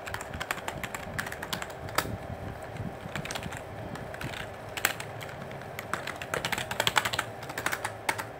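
Computer keyboard typing: irregular runs of quick key clicks as a phone number and an email address are entered, with a few louder single key strokes and a faster, louder run near the end.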